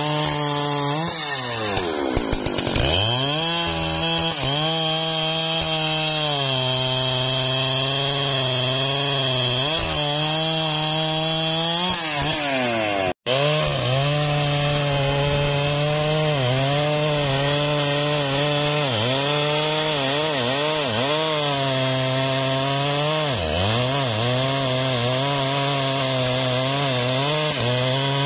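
Large two-stroke chainsaw running at full throttle while cutting through a thick hardwood log. Its pitch sags briefly each time the chain bogs under load and then recovers. There is a brief break about halfway through.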